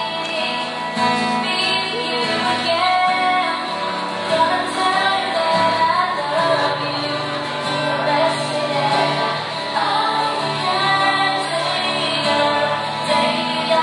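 A boy singing a song into a microphone while playing an acoustic guitar.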